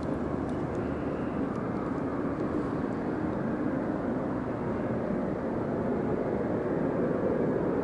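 Steady drone of a distant engine, slowly growing louder.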